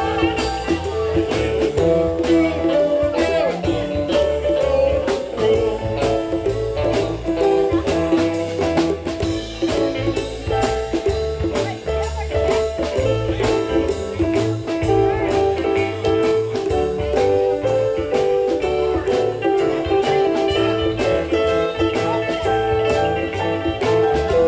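A band playing an instrumental break in a blues song: a guitar lead with bending notes over bass and drums.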